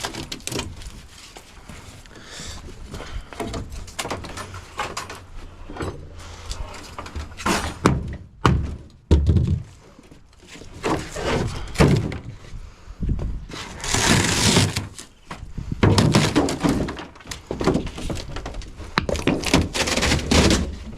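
Knocks, clunks and scraping from a fridge/freezer being taken apart to get at its copper tubing. There are many separate knocks and clicks, with longer stretches of scraping or tearing about two-thirds of the way through.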